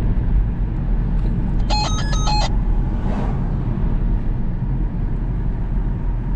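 Steady low rumble of a car driving, heard from inside the cabin. A short run of electronic beeping tones, stepping up and down, comes about two seconds in.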